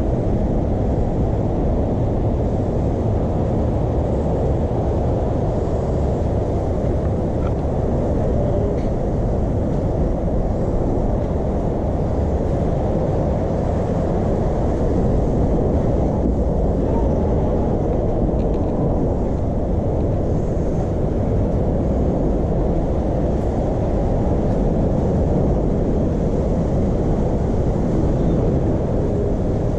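Wind buffeting the microphone: a loud, continuous low rumble that rises and falls.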